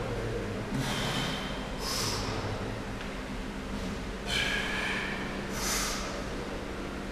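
A lifter's forceful breaths while squatting a 150 kg barbell: a pair of sharp breaths a second apart as he comes up out of a rep, then another pair a few seconds later on the next rep.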